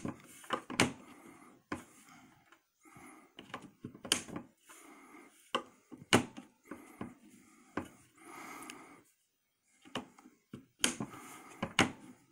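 Mossberg pump-action shotgun's action being racked back and forth repeatedly: metal sliding with a series of sharp clicks, about eight in all. Its worn shell-stop parts have been freshly filed to the right angle so the shells drop onto the elevator.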